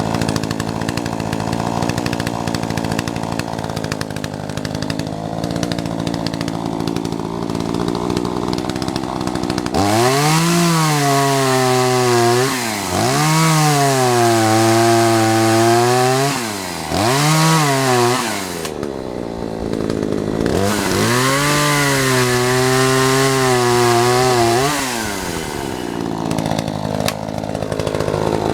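Chainsaw cutting through the fallen top of a coast redwood. It runs steadily at first, then about a third of the way in it revs up four times, its pitch dropping and holding each time the chain bites into the wood, and it eases back near the end.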